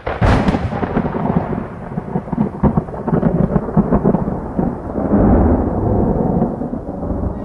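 Thunder sound effect: a sharp crack at the start, then a long rumble with crackles that swells again about five seconds in and fades near the end.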